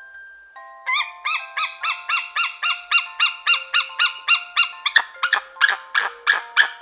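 A bird calling rapidly, about three short calls a second, the calls turning sharper and sweeping downward about five seconds in. A soft melody of mallet-percussion notes plays underneath.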